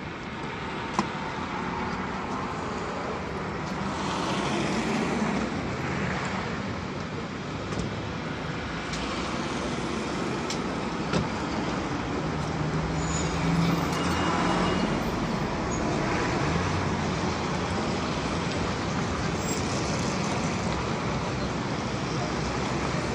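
City road traffic: cars and buses passing, engines running and tyres on the road. A bus engine hum grows louder about halfway through as a bus passes close, and there are two sharp clicks, one near the start and one about halfway.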